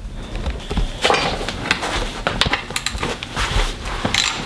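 Irregular metallic clinks and knocks of hand tools working on the shifter of a T5 manual transmission.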